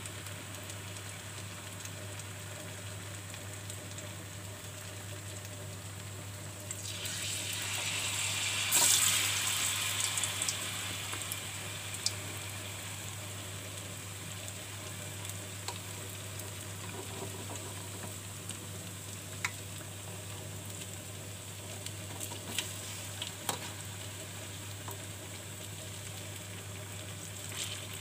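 Biscuits coated in mung-bean batter frying in hot oil in a pan, a steady sizzle with scattered pops. The sizzle swells loudly for a few seconds about seven seconds in, then settles back.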